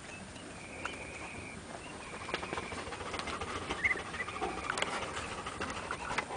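Muscovy ducklings nibbling and pecking at a hand, their bills making scattered small clicks along with rustling in the straw litter. A few faint, thin peeps come through, one long one about a second in and shorter ones later.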